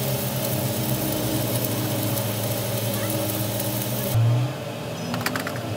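A motor running with a steady low hum. About four seconds in the sound changes abruptly, and a few light metallic clinks follow near the end.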